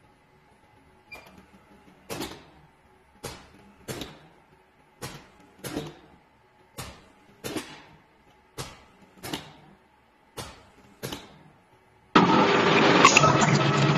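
A touchscreen beep about a second in. Then the air-driven filling nozzle of a chili sauce filling machine gives short hissing bursts in pairs, about one burst every 0.8 s, as each cup is filled. About twelve seconds in, a loud steady noise cuts in suddenly.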